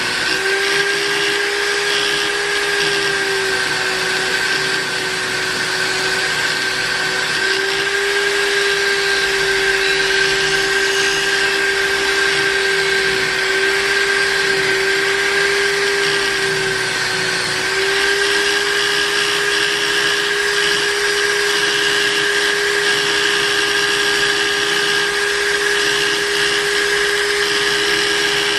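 Electric buffing machine running continuously with a steady motor whine over a hiss. The pitch wavers slightly a few times, and there is a shift about 17 seconds in.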